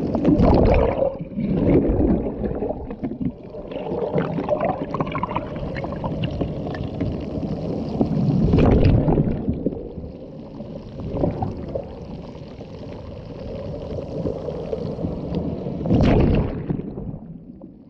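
Sea waves washing in and drawing back, the rush of water swelling to loud surges every few seconds, with the biggest ones near the start, about halfway through and near the end.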